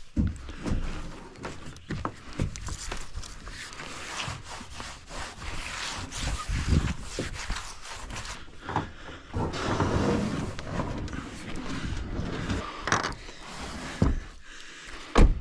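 A kayak being handled and loaded into a car: irregular knocks, bumps and rubbing or scraping, with a louder thump near the end.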